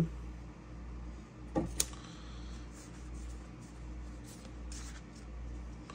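Soft handling noises of trading cards and card packaging over a low room hum: one sharp click a little under two seconds in, then a few faint, short rustles.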